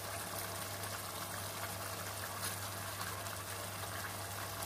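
Thick curry gravy simmering in a nonstick pot, bubbling and sputtering steadily while a spoon slowly stirs it over boiled eggs. A steady low hum runs underneath.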